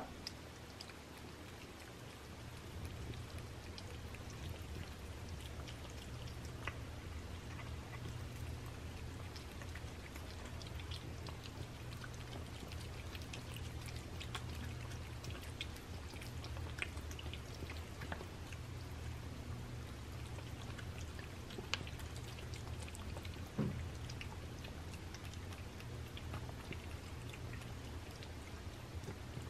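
Several cats eating moist raw food from paper plates: soft, wet chewing, lapping and smacking clicks, over a steady low hum, with one slightly louder knock about two-thirds of the way through.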